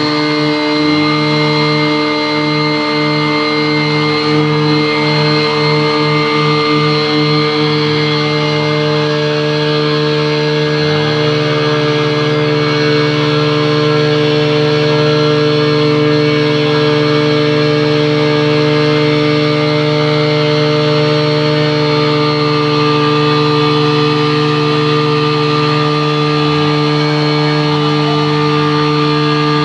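Engine of a Tohatsu V50 Rabbit portable fire pump running at a steady speed on test. It pulses slightly about twice a second for the first several seconds, then settles into an even, constant note.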